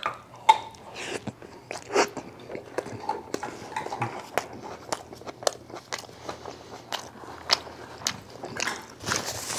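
A man biting into and chewing a tortilla wrap filled with steak, kimchi, mashed potato and vegetables: a string of short crunches and mouth clicks, several a second. Near the end a denser rustling noise comes in.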